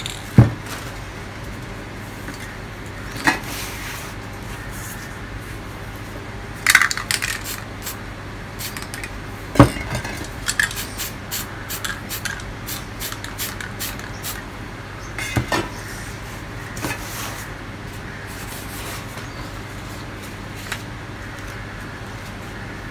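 Aerosol spray-paint cans and metal tools being picked up and set down: about five sharp clinks and knocks, with lighter ticks and taps between them, over a steady low hum.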